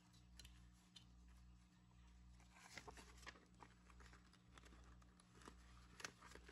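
Near silence: faint rustles and light clicks of paper banknotes and a clear plastic binder envelope being handled, over a low steady hum.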